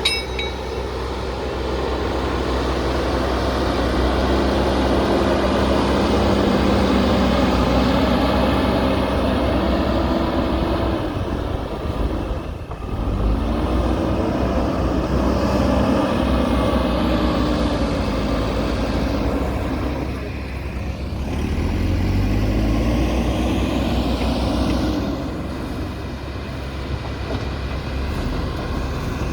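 JCB backhoe loader's diesel engine working under load, its pitch rising and falling in long swells as the machine works the mud. The engine sound dips briefly twice, about twelve seconds in and again around twenty seconds, then picks up again.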